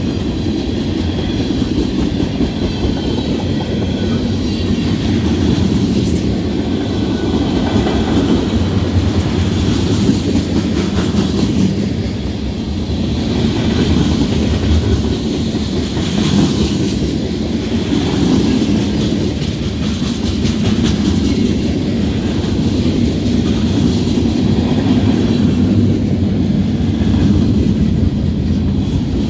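Norfolk Southern freight train rolling steadily past, its cars' wheels running over the rails.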